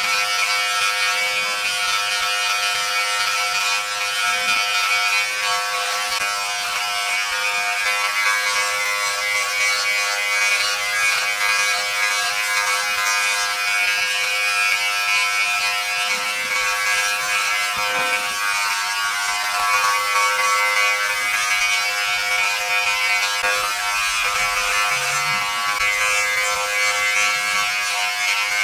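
Philips BodyGroom 7000 body groomer's trimmer running with a steady buzz while it cuts chest hair through its 5 mm comb guard.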